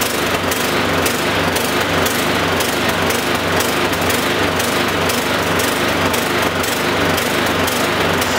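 Briggs & Stratton 450E single-cylinder lawnmower engine running with a surging, hunting speed. The speaker blames tiny, partly blocked jets in its plastic carburettor that starve the engine of fuel.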